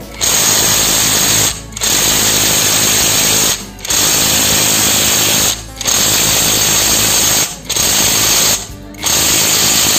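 J-LD impact wrench hammering in six bursts of about one and a half seconds each, with short pauses between, as it undoes tight bolts on a diesel engine.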